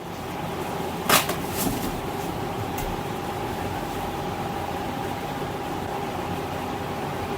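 Electric fan running with a steady whoosh and a faint steady hum. A sharp click comes about a second in.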